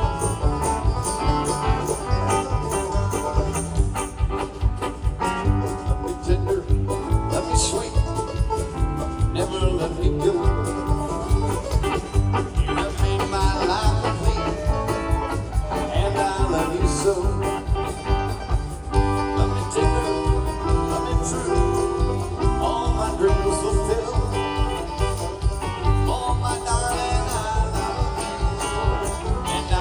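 Bluegrass band playing, with banjo and guitar over a steady beat.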